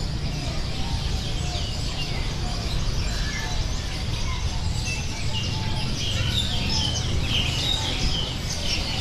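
Many small caged songbirds chirping and tweeting over one another, the sound of a bird market, growing busier in the second half, over a steady low rumble.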